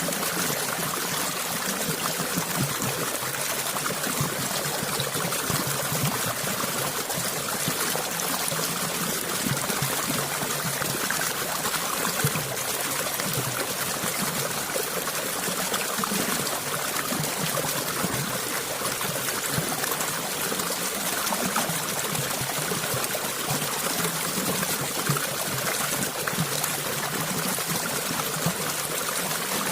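Water flowing and trickling steadily over stones in a small stream, an even burbling rush with no changes.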